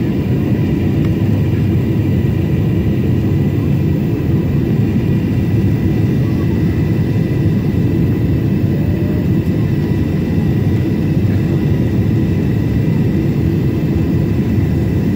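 Steady cabin noise inside a Boeing 767-400ER on approach: a deep rush of airflow and its General Electric CF6 turbofan engines, with a faint steady whine on top.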